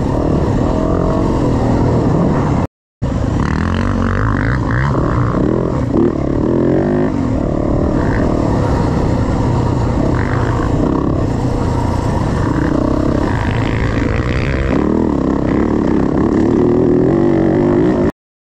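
Dirt bike engine running under load from the rider's own bike, its pitch rising and falling as the throttle is worked along a rough trail. The sound breaks off briefly about three seconds in and again at the very end.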